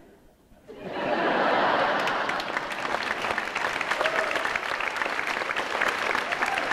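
Audience applause that starts about a second in after a brief hush and keeps going, dense and steady.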